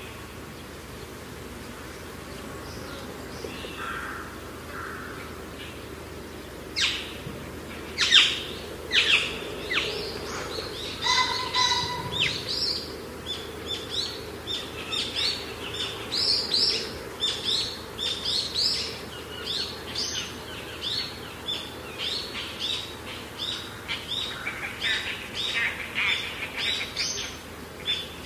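Small birds chirping over a steady outdoor background: a few short, sharp, high calls about a quarter of the way in, turning into rapid repeated chirps about two a second.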